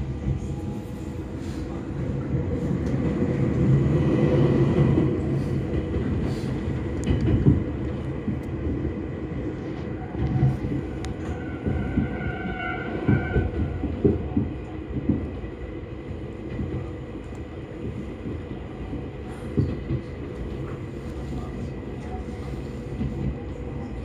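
Fukushima Kotsu Iizaka Line electric train running, heard from inside the passenger car: a low rumble that swells over the first few seconds, with scattered knocks from the wheels and track. A brief high whine sounds about halfway through.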